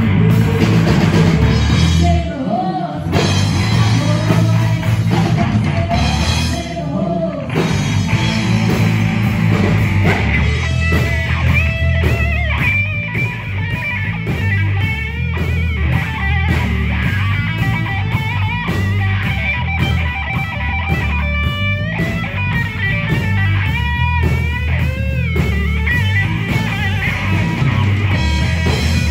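Live country-rock band playing with electric bass and drum kit: singing in the first few seconds gives way to an electric guitar solo full of bent, wavering notes.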